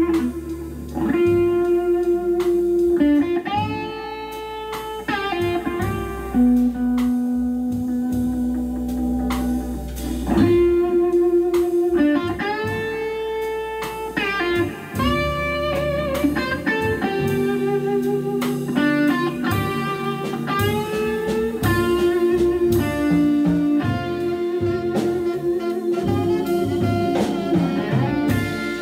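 Live jazz-blues groove from a small band: Hammond B3 organ, drum kit, saxophone and electric guitar, with long held notes that bend into pitch over a steady drum pulse.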